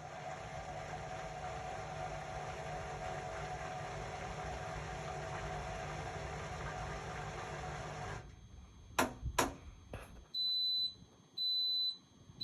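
Indesit Innex BWE 91496X washing machine running steadily, then stopping abruptly about two-thirds of the way in, followed by two sharp clicks. Its end-of-cycle signal then sounds as long, high, evenly spaced beeps, two of them, with a third starting at the very end.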